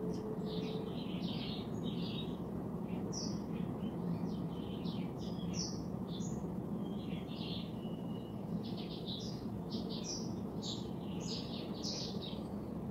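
Small birds chirping, many short chirps in quick runs throughout, over a steady low hum.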